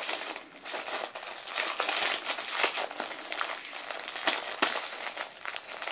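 Wrapping paper crinkling and crackling in quick, irregular bursts as a West Highland white terrier chews and tugs at a wrapped present.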